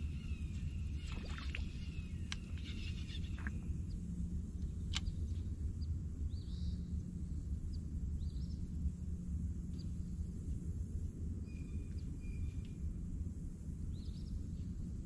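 Outdoor ambience: a steady low rumble, with a few light clicks in the first few seconds and several short, faint bird chirps scattered through.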